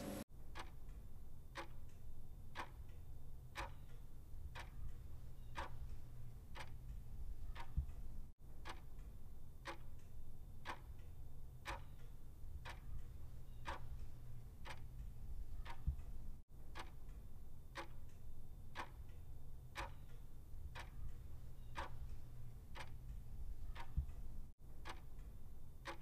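Steady, even ticking, about one tick every three-quarters of a second, over a low steady hum, with brief dropouts about every eight seconds.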